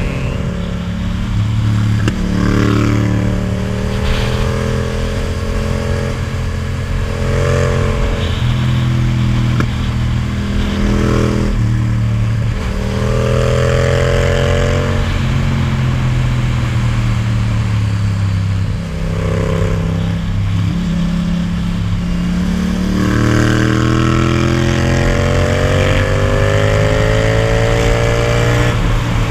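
Yamaha MT-07's parallel-twin engine with an Akrapovic titanium exhaust, pulling in fourth gear: its note eases and picks up again, then climbs steadily in pitch over the last several seconds as the bike speeds up, with wind rushing past.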